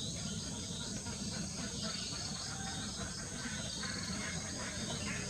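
Chorus of insects chirping, with a steady high buzz and rows of short repeated high chirps, over a low rumble.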